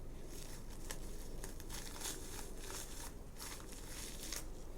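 Plastic toy packaging crinkling as it is handled, in a run of short, irregular rustles.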